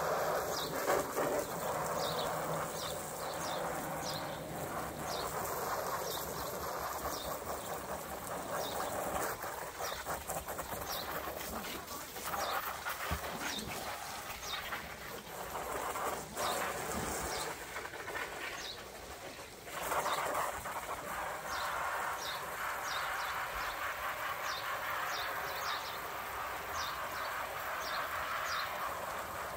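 Water from a garden hose spray gun hissing and splashing onto an inflatable hot tub and the wet patio, steady with a brief drop about two-thirds of the way in. A bird chirps repeatedly over it, about two short chirps a second.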